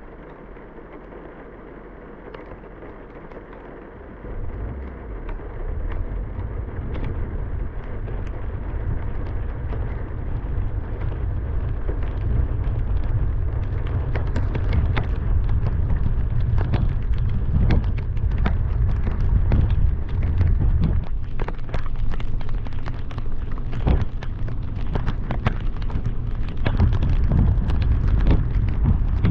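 Car driving through heavy rain: a low rumble of wind and road noise comes in about four seconds in and slowly builds, while rain hits in sharp ticks that grow thicker in the second half.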